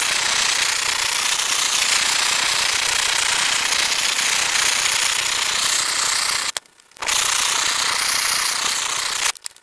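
Weed-burner propane torch running at full flame, a loud steady hiss as it chars wooden boards. It cuts out for about half a second after six and a half seconds, comes back, and stops shortly before the end.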